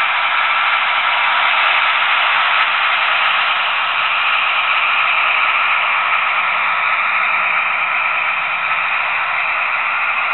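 HO-scale model train with a Trix V100 diesel locomotive running past: a steady rushing noise of the wheels on the track mixed with the diesel engine sound from the locomotive's DCC sound decoder, heard through its small speaker.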